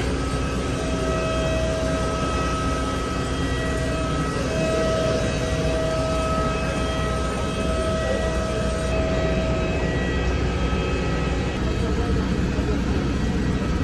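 Steady rumble inside an airport apron passenger bus, with a steady whine that grows stronger about four seconds in and fades again a few seconds later.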